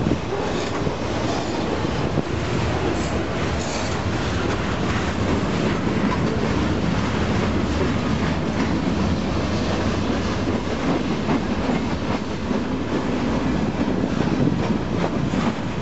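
Freight train boxcars and gondolas rolling past close by: a steady rumble of steel wheels on the rails, with a running clatter of clicks and knocks from the wheels and cars.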